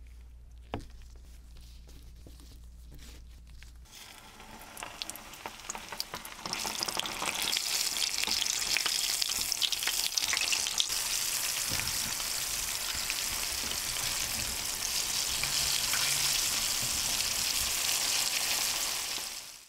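Powder-coated shrimp deep-frying in hot oil in a small pot: a steady sizzle that starts about four seconds in, grows louder a couple of seconds later, and cuts off suddenly at the end.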